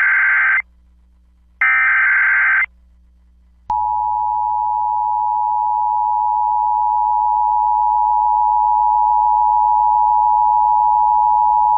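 Emergency Alert System header and attention signal: two harsh, one-second bursts of digital data tones a second apart, then a long steady tone near 1 kHz that begins nearly four seconds in, announcing a new warning.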